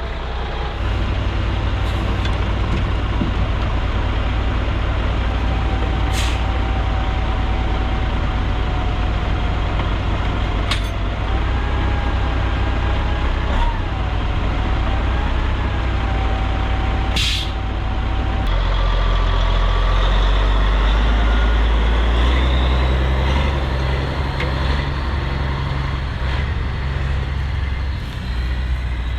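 Truck engine running steadily while the truck builds air pressure for its air brakes, with a wavering whine over the drone and two brief sharp hisses of air. About two-thirds through the engine gets louder and deeper.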